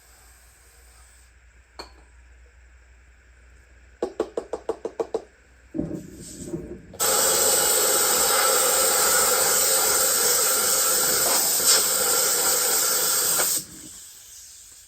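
A quick run of rapid rattling knocks, then a loud steady spray hiss lasting about six seconds that cuts off sharply, as the washer is cleaned.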